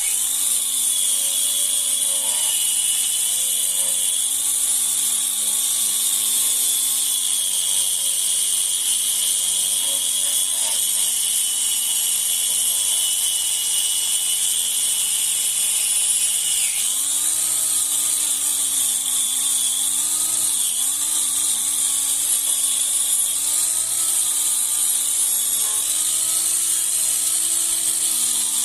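Electric grinder running continuously while it is worked against rusty metal, its motor pitch sagging and recovering as it is pressed into the work, over a steady high grinding hiss. It starts suddenly at the opening.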